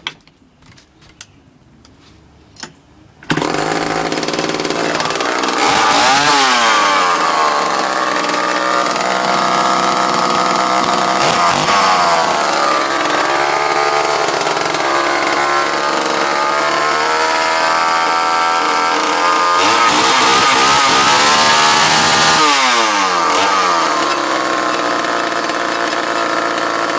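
1967 Pioneer 1100 chainsaw's two-stroke engine starting about three seconds in after a few clicks. It runs on, revved up and down several times and held at high revs for a couple of seconds near the end.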